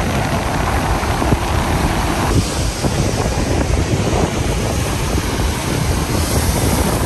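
Wind buffeting the microphone over the wash of surf breaking on a sandy beach, a steady rough rush that changes character abruptly a little over two seconds in.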